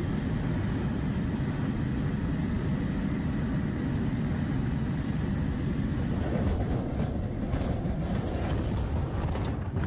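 Rumbling rush of air past the cockpit and microphone of a single-propeller light aircraft gliding with its engine failed, with no engine note. About six seconds in the noise roughens, with a few knocks and rattles as the plane comes down near the ground.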